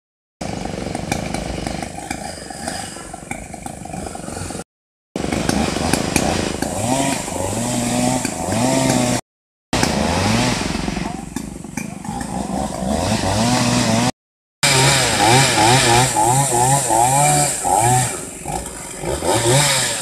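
Two-stroke chainsaw revving up and down again and again in short bursts as it cuts up a storm-felled tree. The sound drops out abruptly a few times.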